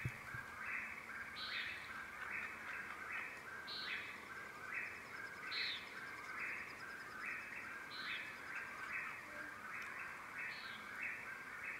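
Faint birdsong ambience of early morning: a steady run of short, stepped chirps, two or three a second, with a higher call every two seconds or so.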